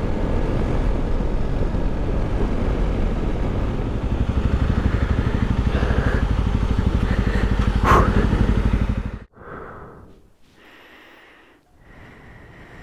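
Motorcycle engine running steadily on the road with wind and road noise, growing a little louder about four seconds in, with a short sharp click near eight seconds. About nine seconds in the sound cuts off abruptly to a much quieter, uneven outdoor background.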